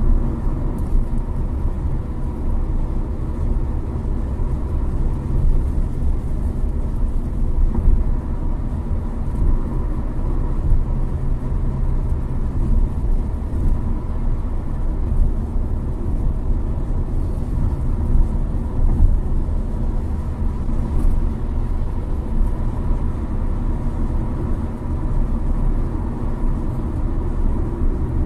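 Steady road noise inside a car's cabin while cruising on a highway: a low rumble of tyres and engine. A faint low drone in it drops away about halfway through.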